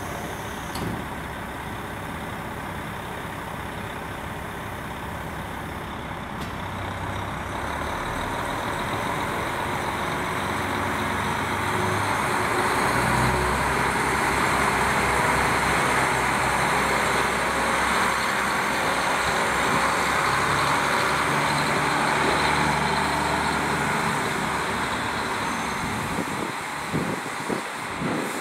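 KiHa 40 diesel railcar's engine idling, then revving up and running loudly and steadily as the railcar pulls away.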